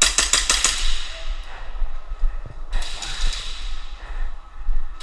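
Airsoft gun firing a quick string of about seven sharp shots within the first second. A stretch of even, hiss-like noise follows from a little before the halfway mark.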